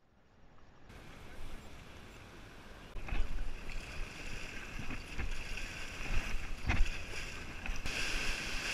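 Rushing white-water river rapids around an inflatable raft, heard through a raft-mounted action camera with wind on its microphone. The sound fades up from silence, grows louder about three seconds in with three heavy thumps, and a brighter hiss of rushing water comes in near the end.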